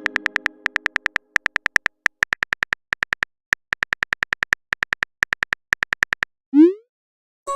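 Rapid clicks of a phone-keyboard typing sound effect, coming in quick bunches as a text message is typed out, then about six and a half seconds in a short rising whoosh as the message is sent. A fading chime rings under the first clicks.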